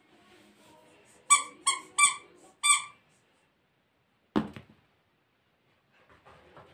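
A squeaky dog toy squeezed four times in quick succession, short high squeaks, followed a moment later by a single thump.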